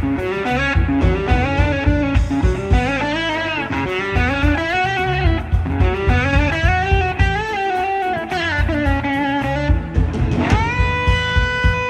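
Electric slide guitar soloing on a red Gibson SG over a live band's drums: a singing melodic line of gliding notes, and near the end a slide up into one long held high note.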